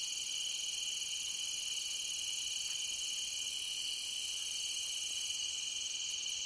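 Night insect chorus, crickets trilling steadily and high-pitched without a break.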